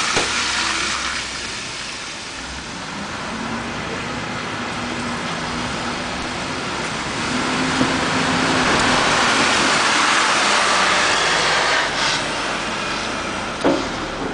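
City bus engine running as the bus pulls up and passes close by, its tyres hissing louder on the wet, slushy road. There is a short sharp knock near the end.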